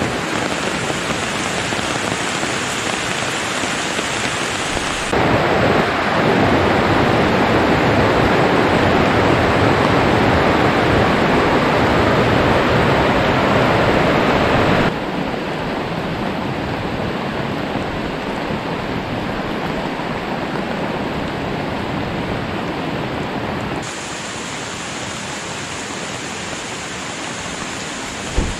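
Steady rain falling, a continuous hiss across several cut shots, heaviest from about five to fifteen seconds in. A brief thump comes right at the end.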